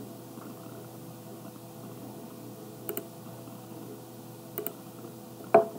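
Two soft computer-mouse clicks, about three seconds in and again a second and a half later, over a low steady hum of room tone, followed by a short louder noise just before the end.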